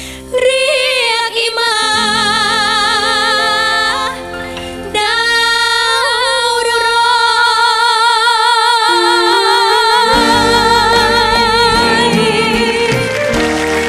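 Two women singing a duet with live band accompaniment, ending on one long note held with vibrato from about five seconds in to near the end.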